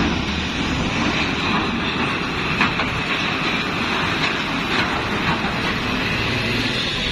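A bus running, a steady rumble and hiss of engine and road noise, with a few short rattles or clicks in the middle.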